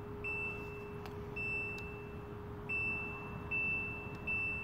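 Al-Mateen fully automatic washing machine's electronic control panel beeping as it is set up and started: five single high beeps at uneven spacing, each fading within about a second, over a faint steady hum.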